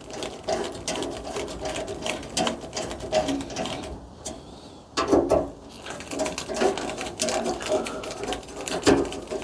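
Quick, repeated mechanical clicking of a hand tool working the screws that hold a gas water heater's pilot and igniter assembly, with a louder knock or scrape about five seconds in.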